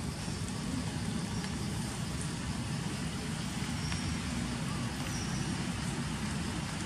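Steady low rumble of outdoor background noise with a faint hiss above it, unchanging throughout, with no distinct knocks, calls or other events.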